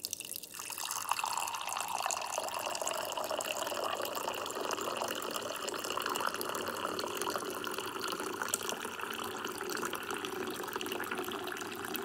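Water dispenser's cold tap running a steady stream into a mug, starting about half a second in. The water is the vinegar-and-water cleaning mix being drained out of the cold side.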